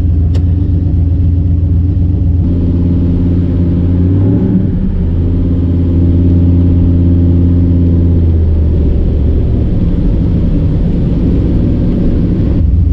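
Turbocharged 6.0 LS V8 running steadily at cruise, a low drone heard inside the car's cabin, with a brief change in engine pitch about four and a half seconds in.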